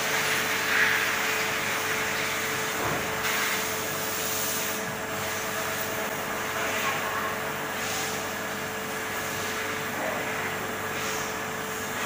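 Vacuum-chamber helium leak testing machine running: a steady mechanical drone with a constant hum tone, broken by several short hisses of air.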